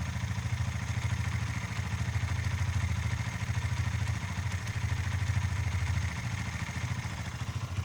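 T2 motorcycle engine idling steadily with a rapid low pulsing and a faint clatter. This is the abnormal engine noise that the owner says goes away when the clutch lever is pulled in.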